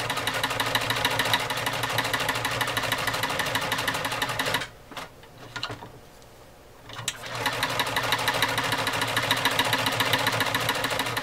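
Omega 307 sewing machine running fast and stitching through thick leather, its needle and mechanism clattering in a rapid, even rhythm over the motor hum. It stops for about two seconds in the middle, with a couple of light clicks, then starts stitching again.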